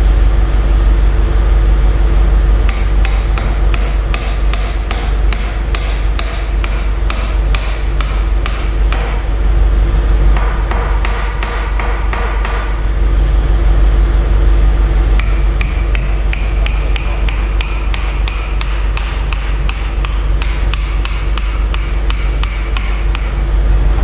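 Hammer blows on the steel lift-cylinder mounting of a Volvo L50 wheel loader, struck repeatedly at about two a second with a metallic ring, starting a few seconds in.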